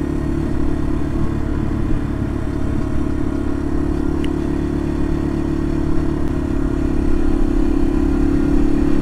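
Yamaha TW200's single-cylinder four-stroke engine running steadily at cruising speed, its pitch held level while the bike rolls along.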